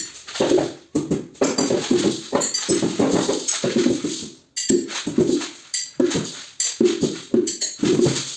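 Tambourine-like hand percussion played in an improvised rhythm: uneven strokes with a low drum tone and bright jingles, with a couple of short breaks.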